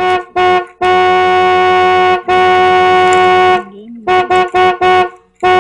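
A horn honking at one steady pitch: two short toots, two long blasts of over a second each, four quick toots, then another blast near the end.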